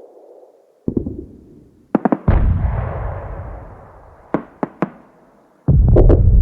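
War-film battle sound effects: heavy explosions with deep rumbling tails, one about a second in, a bigger one about two seconds in that rumbles away over the next few seconds, and another near the end. Three quick sharp gunshots come between them.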